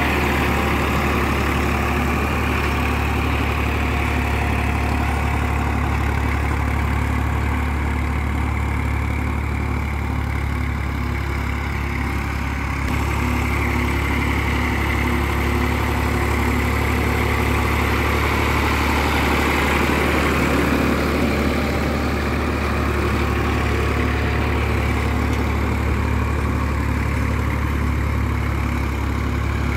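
Massey Ferguson 240 tractor's three-cylinder Perkins diesel engine running steadily while pulling a cultivator through tilled soil.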